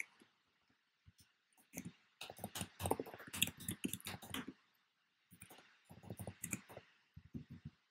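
Computer keyboard typing: faint runs of quick keystrokes in three spurts, broken by short pauses, the longest run starting about two seconds in.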